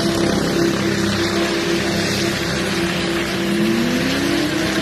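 Small helicopter running on the ground, a steady engine and rotor drone with one tone rising in pitch about three seconds in.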